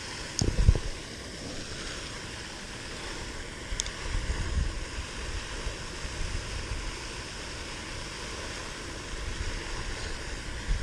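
Wind rumbling on the microphone over a steady rushing hiss, with one faint tick about four seconds in.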